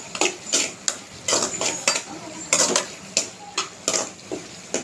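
A slotted metal spoon scraping and clinking against a metal pan as a thick mushroom gravy is stirred: quick, irregular strokes, about two or three a second.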